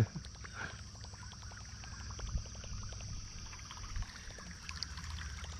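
Light water lapping and trickling against a kayak's hull, with many small soft clicks, under a steady high insect drone.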